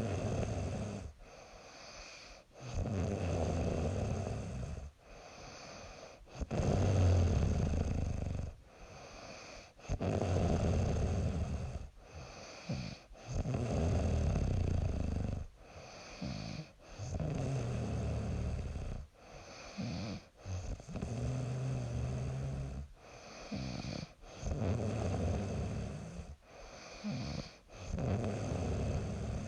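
A young woman snoring in her sleep: a snore on each breath, repeating roughly every three and a half seconds, with quieter breathing between.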